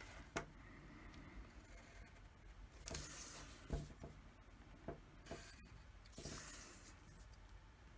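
Pencil drawn along a plastic ruler on paper: faint scratching in two strokes, one about three seconds in and one just after six seconds, with a few light clicks between them.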